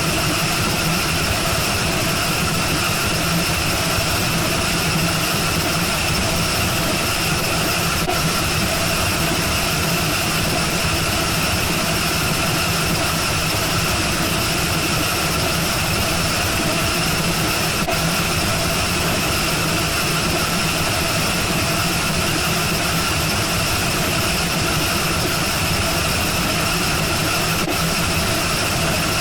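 A loud, steady mechanical drone, like an engine running at a constant speed, unchanging throughout.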